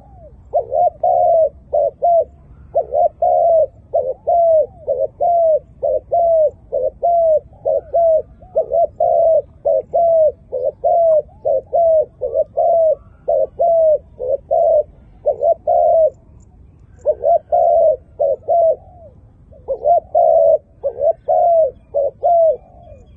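Spotted dove (tekukur) cooing: a long run of short, rounded coo notes repeated at about two a second, broken by brief pauses about two thirds of the way through.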